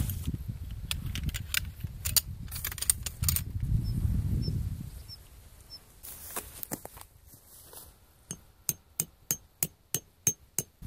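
A tent peg being hammered into the ground while pitching a tarp: about nine quick, evenly paced metallic strikes, each with a short ringing tone, in the last few seconds. Before that, a low rumble and scattered sharp clicks.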